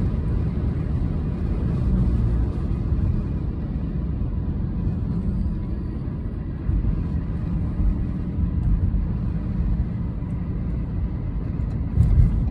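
Road noise inside a moving car: a steady low rumble of tyres and engine while driving at town speed, with a brief louder swell near the end.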